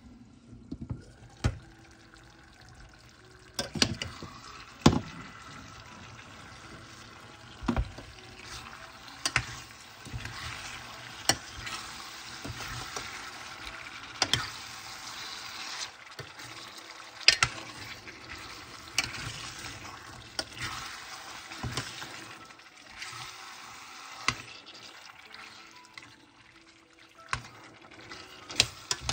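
A metal spoon stirring pieces of chicken liver in a thick adobo sauce in a stainless steel pot. Wet squelching of the sauce over a steady hiss, with a sharp clink of spoon on pot every couple of seconds.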